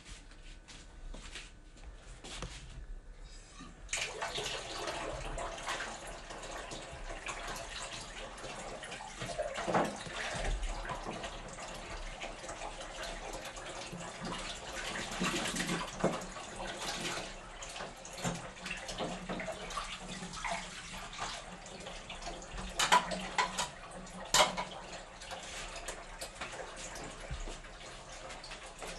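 A few light ticks of handling, then about four seconds in a kitchen tap starts running into the sink and keeps running while dishes are washed in it. Two sharp clinks of crockery stand out near the end.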